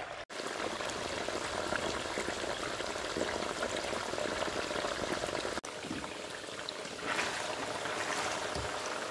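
Food frying in oil in a pan: a steady sizzle that breaks off sharply twice, about a third of a second in and again about halfway through.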